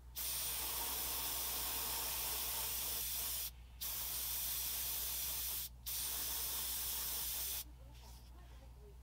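Airbrush spraying white acrylic paint in three steady hissing bursts of about two to three seconds each, with short breaks between them as the trigger is let off.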